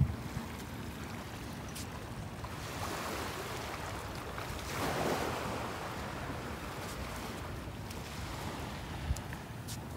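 Small waves washing on a sandy shore, with wind rumbling on the microphone. The wash swells up and falls away once, about halfway through.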